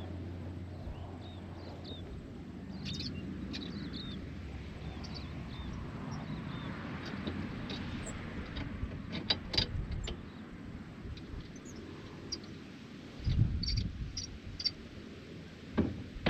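Farm tractor engine running steadily, its low hum dropping away about five seconds in, with small birds chirping now and then and a few low knocks near the end.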